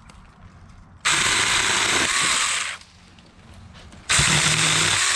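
Saker mini electric chainsaw running in two bursts of about a second and a half each, starting about a second in and again about four seconds in, as it trims small tree branches.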